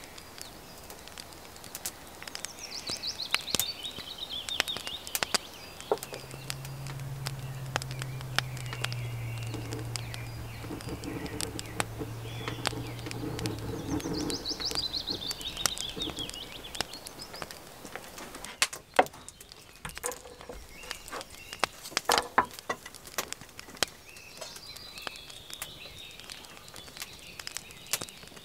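Birds singing in short descending trills, twice in the first half and again near the end, over rain pattering and dripping and the sharp ticks of a crackling wood fire. A low steady hum comes in a few seconds in and stops about halfway.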